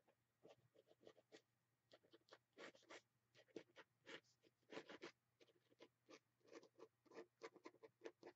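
Pen nib scratching quick, irregular short strokes on a painted paper journal page, drawing a scribbly outline. The sound is faint.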